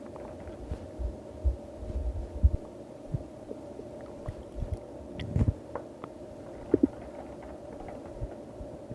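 Stomach growling: irregular low gurgles and rumbles, with a short double squeak about two-thirds of the way through, over a steady hum.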